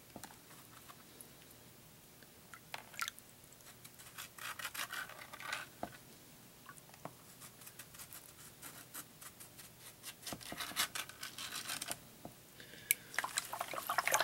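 Fingers rubbing and raking wet sand and gravel against the bottom of a plastic gold pan, a faint gritty scratching that comes in short spells. About a second before the end, water starts to slosh as the pan is dipped and swirled in the tub.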